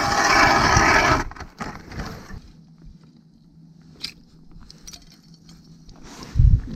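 Harsh scraping on ice for about a second, from a metal skimmer clearing ice chips from ice-fishing holes. A quieter stretch follows with a faint steady low hum and a single click, then a low thump near the end.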